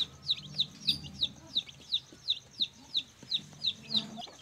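Aseel chicks peeping: a steady run of short, high calls, each falling in pitch, about three a second.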